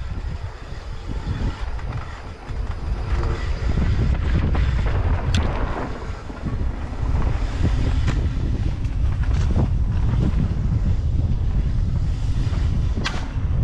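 Mountain bike descending a dry dirt trail: wind buffeting the action-camera microphone over the rumble of the tyres on the dirt, growing louder a few seconds in. Two sharp clacks from the bike stand out, one about five seconds in and one near the end.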